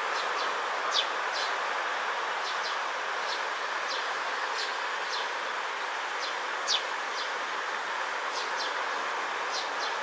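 Eurasian tree sparrows chirping: short, high, down-slurred notes about two a second, with two louder ones about a second in and near seven seconds. A steady hiss runs underneath.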